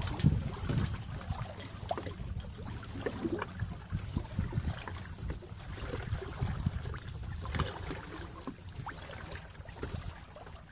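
Wind buffeting the microphone over water splashing and rushing along the hull of a small sailing trimaran under way, with irregular small splashes.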